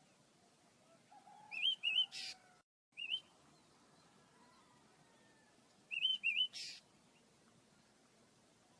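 Pet birds chirping: short wavy chirps in quick runs, twice, each run ending in a brief harsh rasp.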